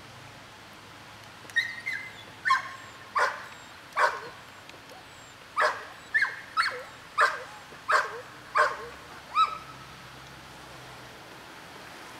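A dog barking about a dozen times, in short sharp barks spaced half a second to a second apart, starting about a second and a half in and stopping near the end.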